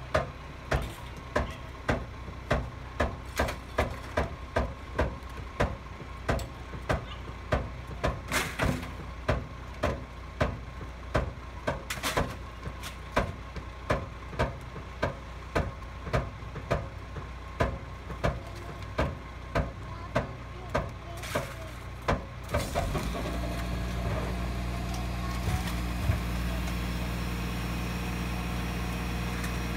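Rear-loader garbage truck idling, with a sharp tick repeating about twice a second. About 23 s in the engine speeds up into a steady louder hum as the hydraulic packer runs its cycle, sweeping and compacting the rubbish in the hopper.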